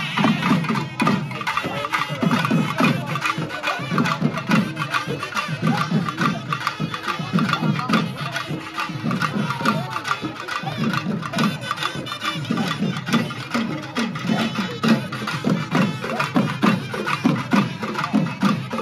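Traditional festival drum band playing live: drums struck with sticks in a fast, steady, driving rhythm of heavy low beats and sharp cracking strokes.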